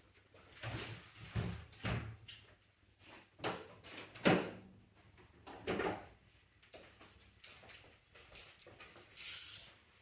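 Hand tools and metal parts knocking and scraping during engine-bay work, with a loud clunk about four seconds in and a short hiss near the end.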